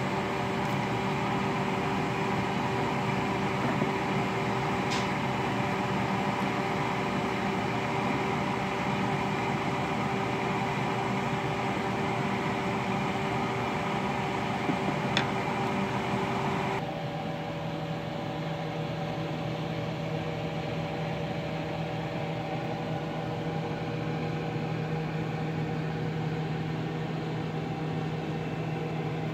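Steady mechanical hum with a few fixed low tones, and two light clicks. About two-thirds of the way through, the hum cuts to a quieter one with a slightly lower tone.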